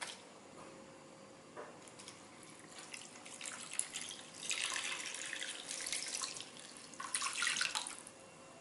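Coconut water poured from a measuring jug into a pan of raw chicken: a steady splashing stream lasting about four seconds, then a shorter second pour near the end.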